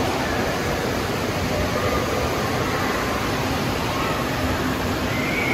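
Steady rushing din of an indoor water park hall: running and splashing water, with faint distant voices blurred into it.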